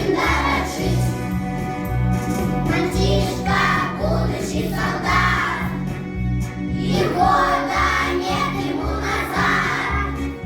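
Children's choir singing a song over an instrumental accompaniment with a steady, even bass rhythm.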